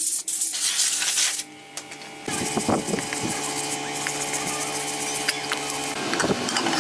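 Hissing, scratchy noise, then after a short pause a small electric power tool starts and runs steadily, humming on a few fixed pitches.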